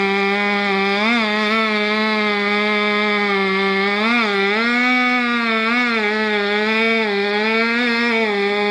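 Two-stroke chainsaw running near full throttle, its pitch dipping and recovering several times as the engine bogs under load in the cut.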